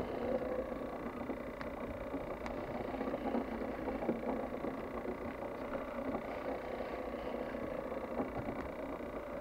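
A steady boat engine drone with water noise, with a few faint clicks.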